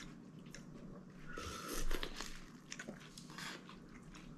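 Eating sounds: crunching and chewing into a fried samosa, with scattered small clicks and crackles and the loudest crunch about two seconds in.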